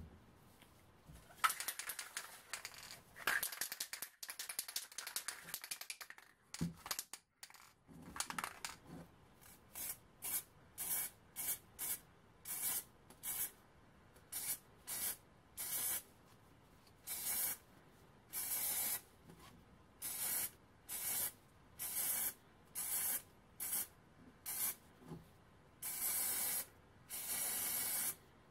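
Aerosol spray-paint can hissing in short bursts, about one a second, with a few longer bursts near the end, laying on a coat of paint in quick passes. Before the spraying starts there are several seconds of irregular rustling handling noise.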